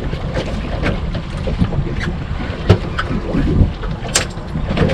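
Wind rumbling on the microphone aboard a small fishing boat at sea, with scattered sharp clicks and knocks from gear on deck; the loudest click comes about four seconds in.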